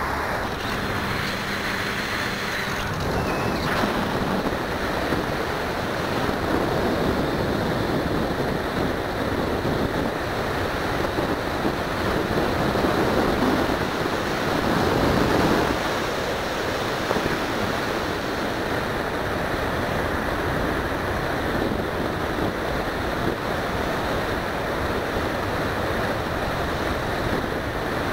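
Airflow and motor noise picked up by the onboard keychain camera of an RC plane in flight: a steady rushing roar of wind on the microphone that swells around the middle.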